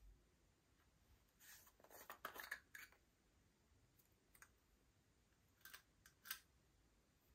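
Faint clicks and scrapes of small glitter jars being handled and opened, and a plastic spatula scraping chunky glitter out of a jar: a short run of them about two seconds in and a few sharper clicks later on.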